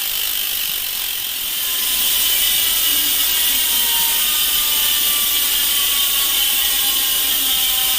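Sword bicycle rear hub freewheeling with its 6 pawls ratcheting so fast over the teeth that the clicks merge into a loud, steady buzz as the wheel spins freely; faint tones slowly fall in pitch. The hub has more than 700 km on it.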